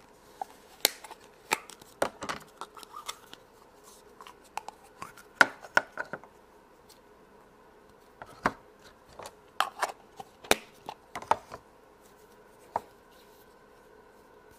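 Hands handling Play-Doh and its plastic tubs and tools on a tabletop: scattered light clicks, taps and scrapes in irregular bunches with quiet gaps, quieter toward the end.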